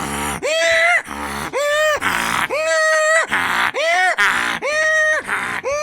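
A man imitating a donkey's bray with his voice: a run of pitched hee calls alternating with rasping, breathy haw sounds, about one cycle a second.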